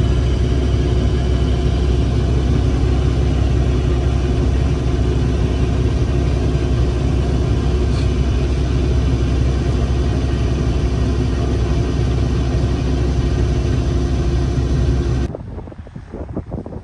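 A vehicle engine running steadily, loud and unchanging, with a deep even hum. About 15 seconds in it cuts off abruptly, giving way to wind on the microphone.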